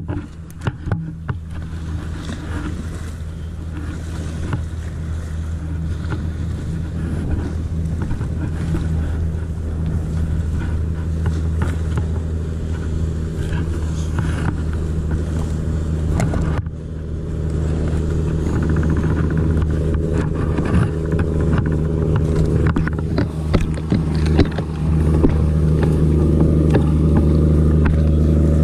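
A boat's engine running steadily with a low hum, getting louder near the end, with scattered small knocks and clicks of handling over it.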